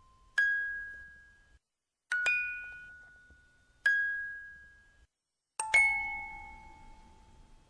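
Slow, sparse bell-like music: four single struck chime notes, spaced well apart, each ringing out and fading before the next. Two of them come as a quick pair of notes.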